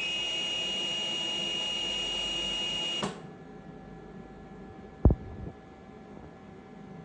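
Medical ventilator running, a steady hiss of gas flow with a high steady tone over it, which stops abruptly about three seconds in. A single sharp click follows about two seconds later.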